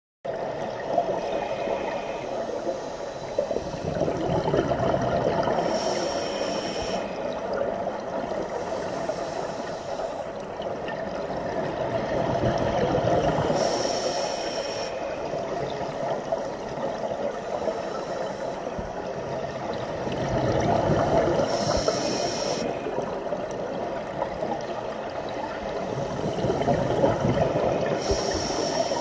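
Scuba diver breathing through a regulator, heard underwater: a steady watery rush, with a hissing burst of exhaled bubbles about every eight seconds, four times.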